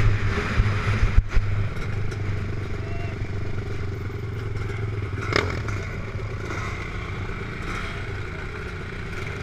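Dirt bike engine running under way, heard from the rider's helmet camera: a steady low drone, louder for the first second and a half, then easing to a quieter steady run. A sharp clack comes about five seconds in.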